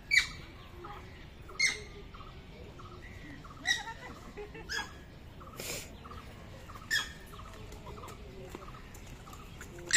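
Short, sharp squeaky animal calls, about six of them, one every one to two seconds, over faint steady chirping in the background.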